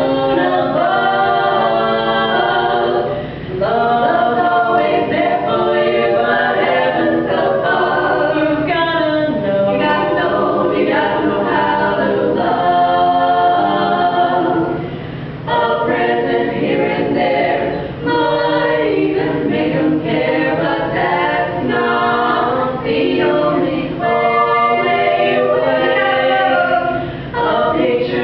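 An a cappella vocal group singing in harmony, several voices and no instruments, with short breaks between phrases.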